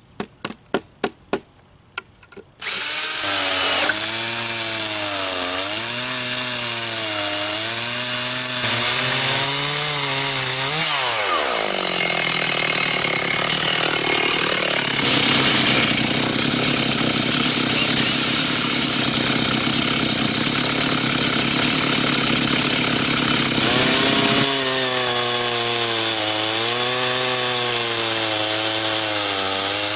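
A few sharp clicks, then the Stihl 360 two-stroke chainsaw catches and runs, cutting along a walnut log in a mini chainsaw mill. Its engine speed rises and falls under the load of the cut. Near the middle the pitch drops sharply, then it runs steady and high for about twelve seconds before wavering again.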